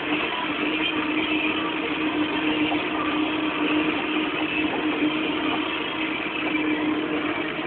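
Deutz-Fahr Agrotron K100 tractor's diesel engine running steadily under load while pulling a cultivator, heard from inside the cab, with a steady hum.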